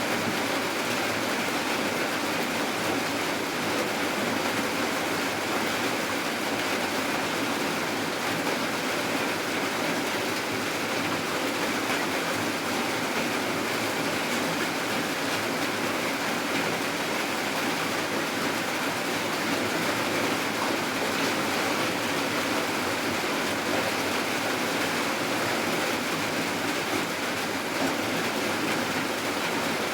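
Steady rain falling, an even unbroken hiss with no pauses or changes.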